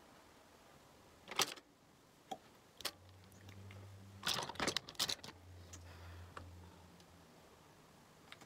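Scattered sharp clicks and knocks of makeup brushes, compacts and hands handling things at close range, with a louder cluster about four to five seconds in, over a faint low hum for a few seconds.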